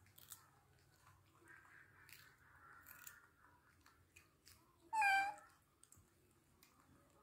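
Baby macaques chewing cucumber with faint crunching clicks, and one short, high-pitched call from a baby macaque about five seconds in.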